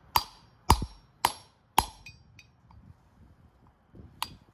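Hammer blows on a steel bearing-race driver, tapping a new wheel-bearing race down into a Dana 44 front hub. Four sharp, ringing metal strikes come about half a second apart, then a pause with a few light ticks, then one more strike near the end.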